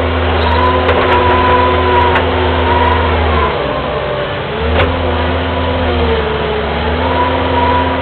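Kubota skid steer's diesel engine running steadily, heard from inside the cab. Its note dips about halfway through for about a second, then comes back up, with a few light knocks along the way.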